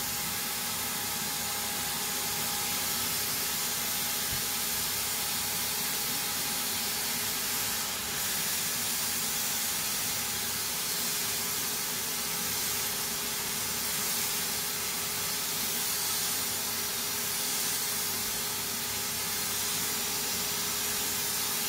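Bosch low-pressure paint spray system running, its spray gun giving a steady hiss of air and paint spray. The gun blows air all the time, fed by the turbine base unit, with a faint steady whine under the hiss.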